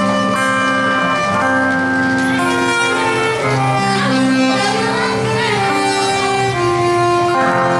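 Straight soprano saxophone playing a slow, legato melody of sustained notes over acoustic guitar accompaniment, settling on a long held note near the end.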